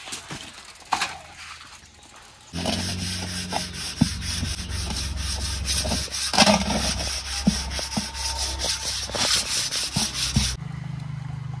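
A metal cooking pot scrubbed by hand, with rapid rasping rubbing strokes starting about two and a half seconds in and stopping shortly before the end. A low steady hum lies underneath and continues after the scrubbing stops.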